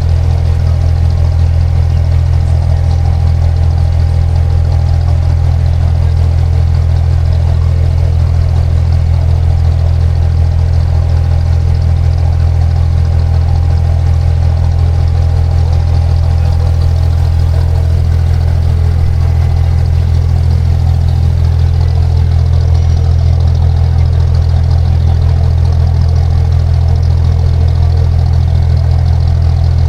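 Engine of an abra, a Dubai Creek water taxi, running steadily at an even speed and heard from on board, with a strong low drone.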